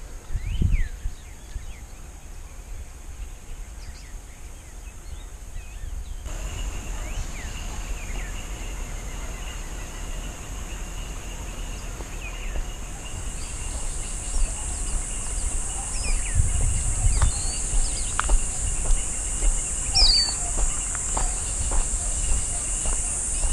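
Outdoor wild-country ambience: scattered bird chirps over a steady high insect buzz that gets louder in the second half, with low wind rumble and occasional sharp ticks.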